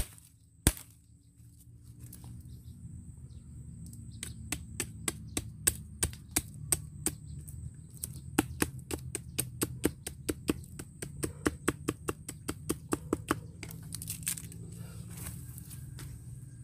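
A run of sharp cracks, one loud one about a second in, then a dense series of three or four a second that stops near the end, over a steady high thin whine.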